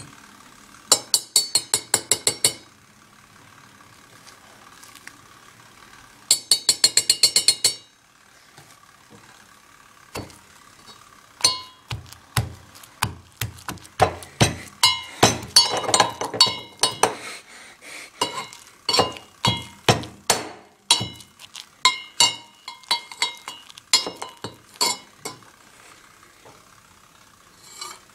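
Metal mortar and pestle clinking: two quick runs of ringing metal taps, then from about ten seconds in a long series of irregular strikes, two or three a second, as the pestle pounds a soft mix of rye bread, butter, syrup and whipped cream.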